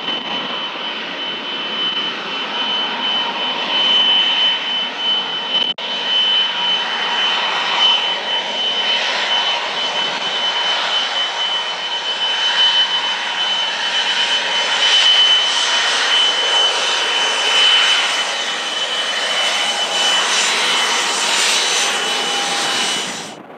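Dassault Falcon 2000EX business jet's twin Pratt & Whitney Canada PW308C turbofans running: a steady high-pitched turbine whine over loud jet noise that builds in the second half, then cuts off abruptly near the end.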